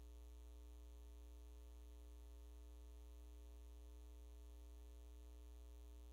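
Faint, steady electrical mains hum on the audio feed.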